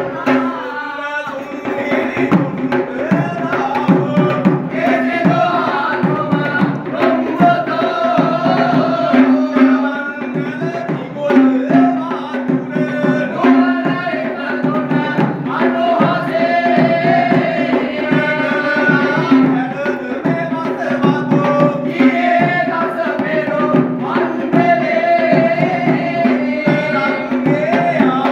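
Kandyan geta bera drums beating a fast, driving rhythm for wes dancing, with a wavering melody over a steady held drone.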